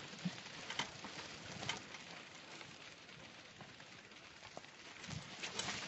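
Footsteps on dry dirt and loose stones, a few sharper crunches standing out over a faint outdoor hiss.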